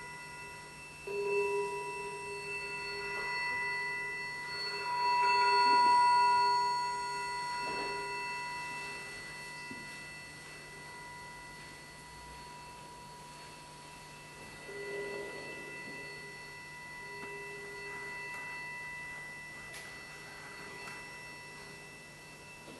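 Live electroacoustic music of sustained pure electronic tones, bell- or tuning-fork-like, several held at once with a lower tone fading in and out. The sound swells loudest about five to seven seconds in, then settles to a softer drone.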